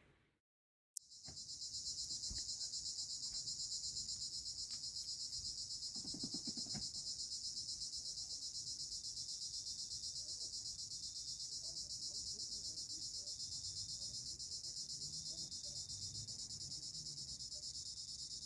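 Insects chirring in a steady, high, fast-pulsing trill that starts about a second in.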